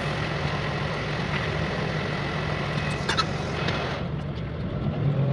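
Bus interior: a steady low engine hum with vehicle running noise, and a hiss that cuts off suddenly about four seconds in. A few light clicks come around three seconds in.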